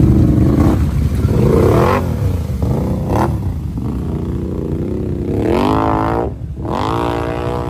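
Can-Am ATV engine revving as it drives through deep muddy water, the pitch rising and falling and climbing steeply twice near the end, with mud and water splashing around the wheels.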